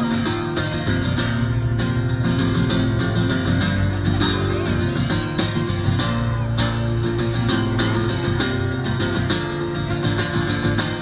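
Acoustic guitar strummed in a steady rhythm, an instrumental break between sung verses with no voice.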